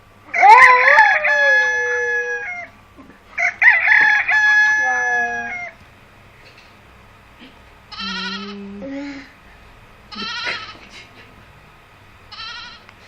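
A rooster crowing twice, each crow a long call of about two seconds. These are followed by three shorter, fainter wavering calls.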